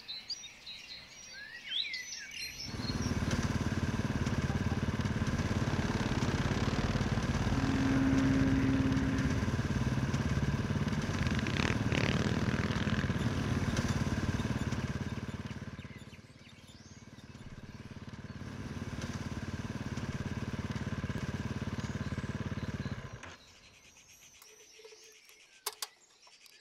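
Birds chirping briefly, then a motorcycle engine running under way with road and wind noise for about twenty seconds, easing off briefly past the middle. It stops a few seconds before the end, leaving a quiet stretch with a couple of clicks.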